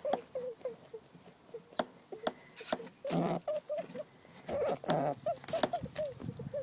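Female rabbit squeaking over and over in short, quick squeaks that dip slightly in pitch, a sign of distress at being approached or mounted by a dominant female. Sharp clicks and rustles of movement run through it, with two louder scuffles in the middle.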